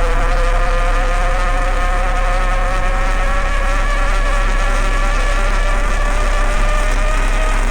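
Motor running with a steady high whine that slowly rises in pitch, over a low hum.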